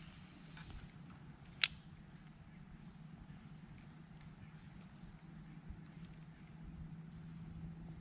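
Chorus of insects making a steady, high-pitched drone, with a single sharp click about a second and a half in.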